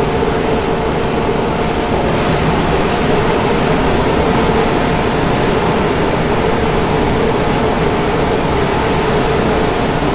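Inside an SMRT C151 metro car running at steady speed: a continuous rumble of the train on the track with a steady hum over it.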